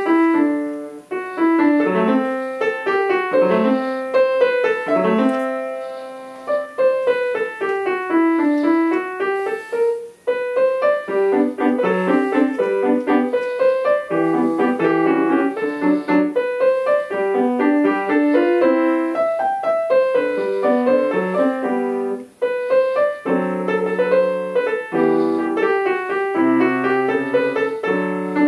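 Solo grand piano played at a student recital, in quick runs of notes with a few short breaks. About a third of the way in, a run sweeps down and back up.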